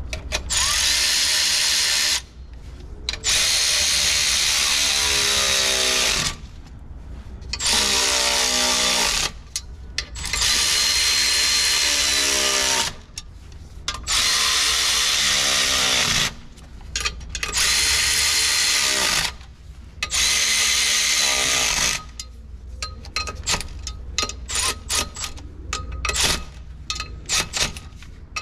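Handheld power tool run in seven bursts of one to three seconds each on the clutch pressure plate bolts, its motor pitch sliding as it spins up and takes load. After the last burst, light metallic clicks and clinks.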